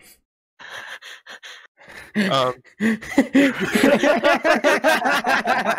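A person's voice over voice chat making wordless breathy gasps, then loud, rapidly warbling vocal noises from about three seconds in.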